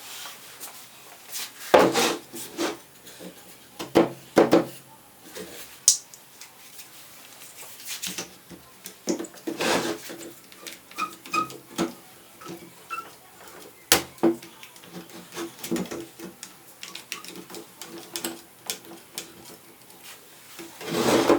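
Wooden chair being worked on by hand: irregular knocks, clacks and scraping of wood on wood, with a few sharper knocks among softer rubbing.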